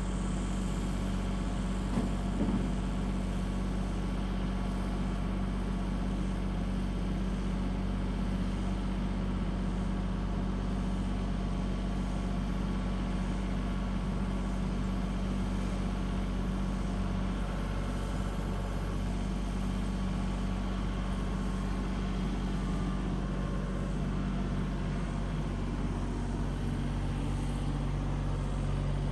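Tractor engine running steadily while loading logs, with a single knock about two seconds in; its pitch drops a little near the end.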